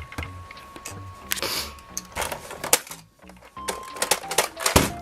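Plastic clicks and clatter of a toy vending machine being worked: a play coin going in and buttons being pressed, with a dense run of clicks near the end, joined by short electronic tones from the machine.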